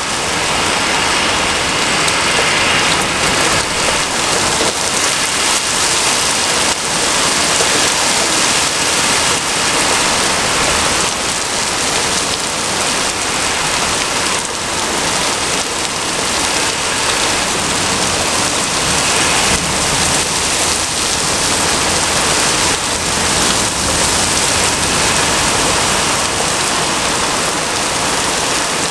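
Heavy rain falling steadily, a dense, even hiss of a downpour.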